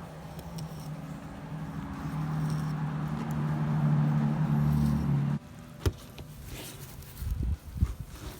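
A steady low motor hum that grows louder, then cuts off suddenly about five seconds in, followed by a sharp click and a few soft knocks.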